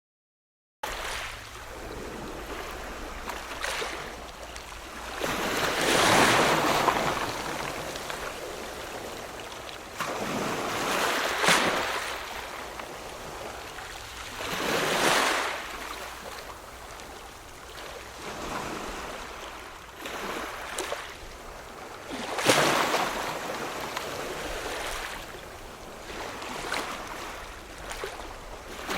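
Ocean waves washing ashore, starting suddenly after a second of silence, then swelling and breaking again every four to seven seconds; the loudest wave crashes about two-thirds of the way through.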